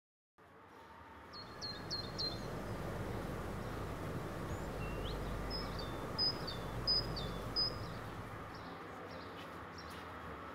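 Urban street ambience: a steady low rumble with small birds chirping over it, three quick chirps about a second and a half in, then a run of four or five between about four and a half and eight seconds. It comes in out of silence half a second in.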